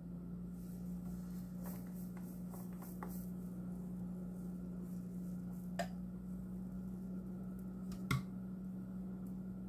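Pancake batter poured onto a hot nonstick griddle, with faint crackling in the first few seconds over a steady low hum. Two sharp clicks come about six and eight seconds in.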